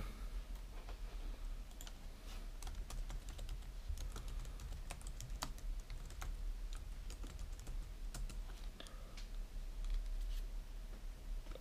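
Typing on a computer keyboard: quiet, irregular key clicks.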